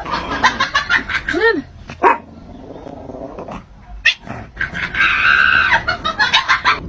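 Cat meowing and yowling, one call rising and falling in pitch, amid many short knocks and clicks.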